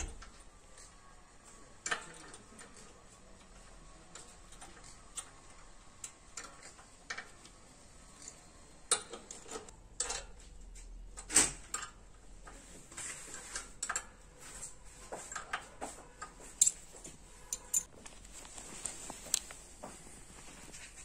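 Irregular metallic clicks, taps and clanks of metal parts being handled and knocked together, some ringing briefly.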